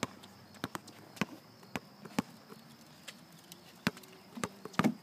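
Scattered sharp taps and knocks, about a dozen in five seconds at uneven spacing.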